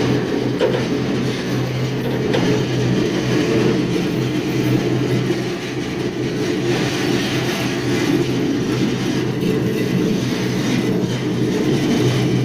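Steady rumble and rattle of a moving freight train, heard from aboard an open car, with a constant low hum under it.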